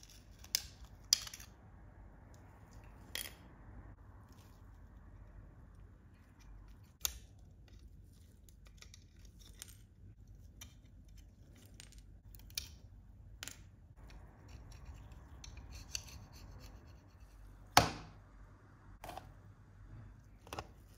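Irregular sharp clicks and taps of small diecast model car parts being handled and worked on, about ten in all, the loudest near the end.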